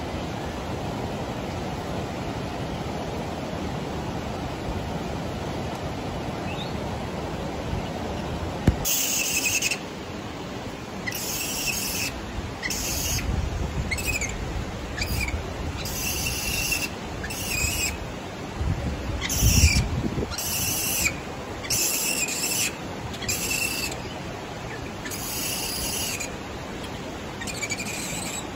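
Steady rushing of a mountain stream. It gives way to a string of about a dozen short, high-pitched calls from Japanese macaques (snow monkeys) at a hot spring, with a brief low rumble about two-thirds of the way through.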